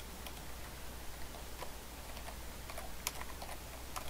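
Computer keyboard being typed on slowly: faint, irregularly spaced keystrokes over a low steady hum.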